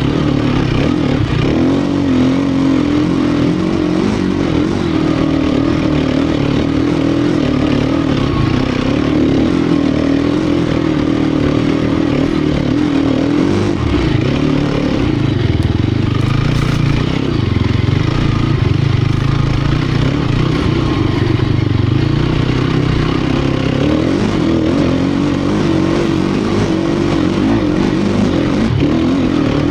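Sherco 250 SEF Factory four-stroke single-cylinder enduro motorcycle engine running under load, its revs rising and falling continuously with the throttle. For a stretch in the middle the engine note drops lower and heavier before picking up again.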